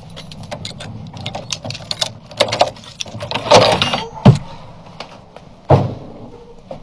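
Iron barrel bolt on an old wooden gate rattling and clicking under a hand, a scraping slide about three and a half seconds in, then heavy clunks as the bolt hits home and the gate swings open.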